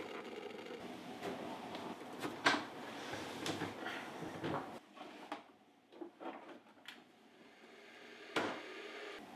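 A series of sharp clicks and knocks from kitchen handling, starting with an electric kettle's lid clicking shut. A steady background noise under the first half drops away about five seconds in.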